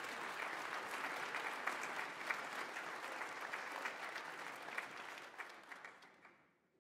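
Audience applauding: dense, steady clapping from many hands that dies away near the end.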